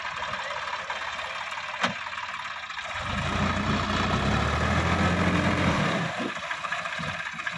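Sonalika DI-50 RX tractor's diesel engine running, then from about three seconds in working harder, louder and deeper for about three seconds as the tractor pulls up out of the flooded paddy onto the bund, easing off near the end. A single sharp click about two seconds in.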